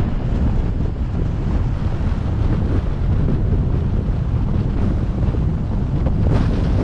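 Wind buffeting the microphone of a moving car's camera, a steady low rumble of wind and road noise while driving along a city street.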